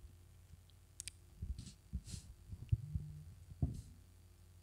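Faint low hum with scattered soft knocks and a sharp click about a second in.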